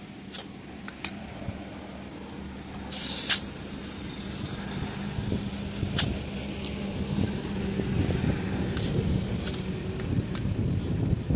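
Motorcycle tubeless tyre being inflated from a compressed-air hose at the valve. A short loud hiss of air comes about three seconds in, followed by a steady rush of air over a low hum, with a few sharp clicks.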